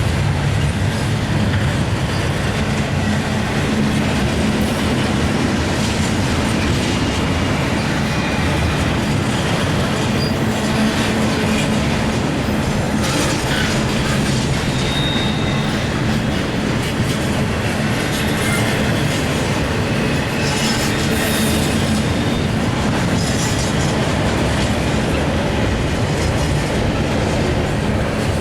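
Cars of a CSX intermodal freight train rolling past, a steady loud rumble and clatter of wheels on the rails. A brief high wheel squeal comes in about halfway through.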